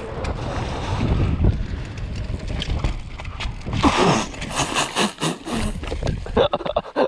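Wind rushing over the microphone and the low rumble of mountain-bike tyres rolling down a dirt jump trail, with a louder burst of noise about four seconds in and short breathy vocal sounds from the rider near the end.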